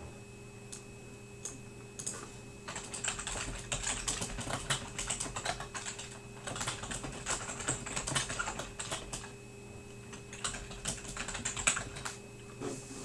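Typing on a computer keyboard: rapid runs of key clicks in the middle, thinning to scattered taps near the end, over a faint steady electrical hum.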